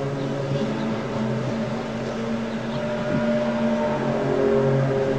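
Unexplained low drone heard from the sky, several held tones sounding together that shift to new pitches every second or two.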